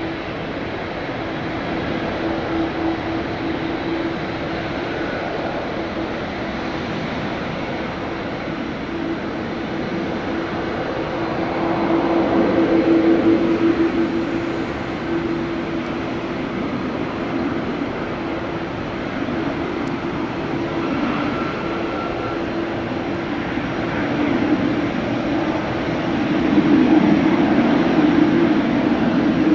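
Jet engines of an arriving Emirates Boeing 777-300ER, its GE90-115B turbofans, making a steady rushing roar with a constant hum underneath. It swells louder about twelve seconds in and again near the end.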